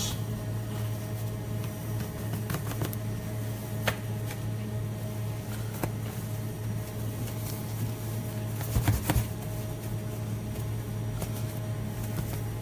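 Steady low electrical hum, with a few light clicks and knocks as pork ribs are turned in a glaze in a black tray; the loudest cluster of knocks comes about nine seconds in.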